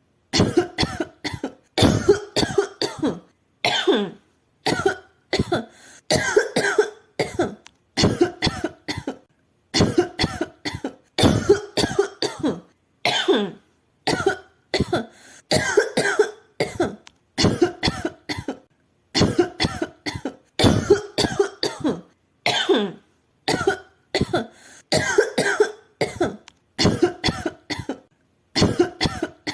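A woman coughing over and over in short fits of two to four coughs, a new fit every second or two with brief silent gaps between.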